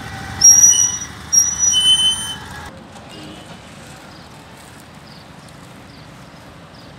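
Outdoor street noise by a row of parked cars. In the first two seconds come three short, loud, high-pitched squeals or whistles of steady pitch. After that the sound drops to a steady traffic hum with faint, regular high chirps.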